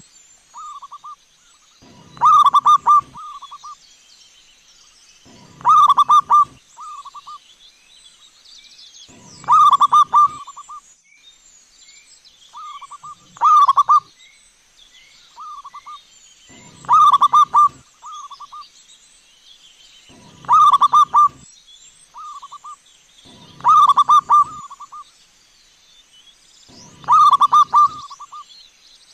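Zebra dove (perkutut) cooing: a phrase of quick staccato coo notes followed by a few shorter notes, repeated about every three and a half seconds, eight times.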